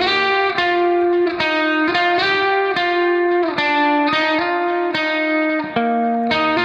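Background music: a melody of plucked guitar notes following one another in a steady run.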